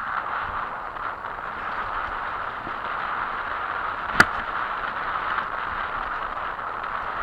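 Steady rushing of wind and tyre noise on a mountain bike descending a dirt trail, through a bike-mounted action camera's microphone. A single sharp knock sounds about four seconds in.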